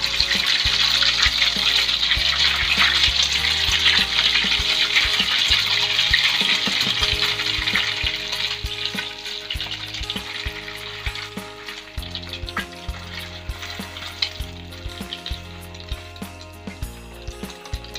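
Egg-coated tapioca dough skewers (cilor) sizzling in hot oil in a wok. The sizzle is loud at first and fades after about eight seconds.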